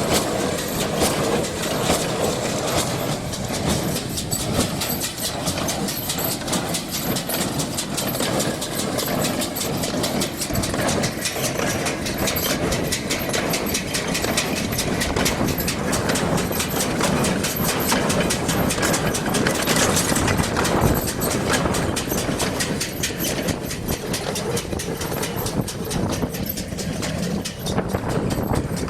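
New Holland BC5060 small square baler running behind a John Deere 5410 tractor: a fast, even mechanical clatter over the tractor engine's steady running.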